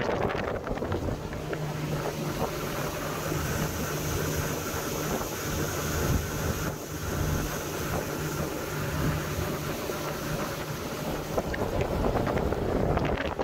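Motorboat under way at speed: a steady low engine hum under heavy wind buffeting on the microphone and rushing water from the hull and wake.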